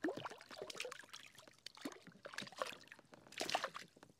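Water splashing and trickling in small irregular bursts, with the loudest splash about three and a half seconds in.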